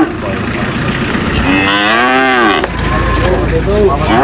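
Cattle mooing: one long moo about one and a half seconds in that rises and then falls in pitch and stops sharply, then a few short, fainter calls near the end.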